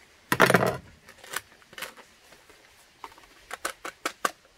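Cooking handling noise at an open fire: a short rustling scrape about half a second in, then scattered sharp clicks and knocks.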